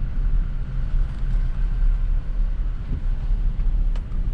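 Truck driving along a road: steady low engine and road rumble.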